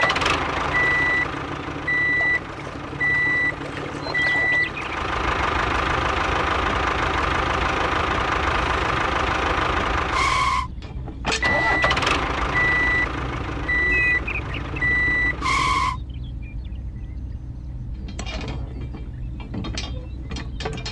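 Heavy truck or construction-machine engine running, with a reversing alarm beeping steadily about once a second in two runs, each run broken off by a short loud hiss like an air brake. Near the end the engine drops quieter with scattered clicks and knocks.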